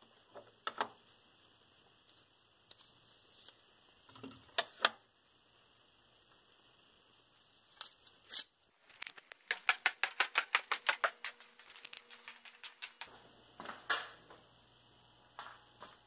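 Folding pocket knives being handled: scattered metallic clicks, then a quick run of small clicks, about five a second, for around four seconds in the middle, and one more click after it.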